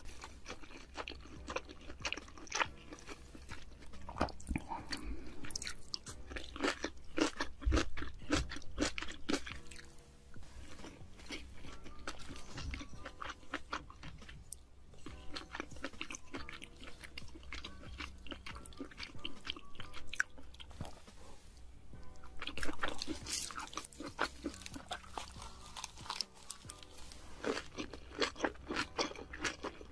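Close-miked mukbang eating: crunchy bites and chewing of lettuce wraps with rice, sour kimchi and bulgogi stew, in many short crackling bursts.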